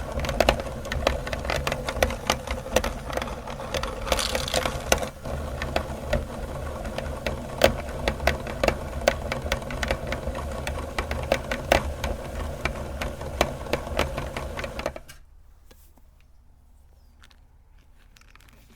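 Electric meat grinder running with candy in it: a steady motor hum with many sharp cracks and clicks as the candy is crushed. The motor stops suddenly about fifteen seconds in, leaving only a faint background.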